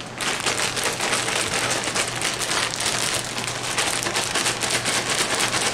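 Apple slices tumbling inside an air-filled zip-top plastic bag being shaken to coat them in cinnamon: a steady rush of many small rattles and plastic rustles without a break.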